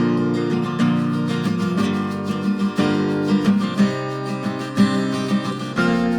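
Background music: strummed and plucked acoustic guitar, chords changing about once a second.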